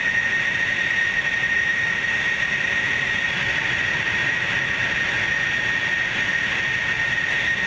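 Jet engines of A-10 Thunderbolt II and F-16 fighters running on the ground: a steady rushing noise with a constant high-pitched whine.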